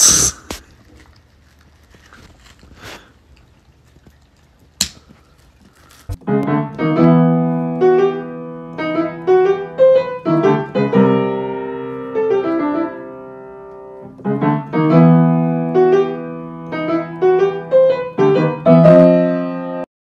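Light solo piano music with a melody over chords, starting about six seconds in and stopping abruptly just before the end. Before it, a quiet stretch opened by a loud, short burst of noise and broken by a sharp click about five seconds in.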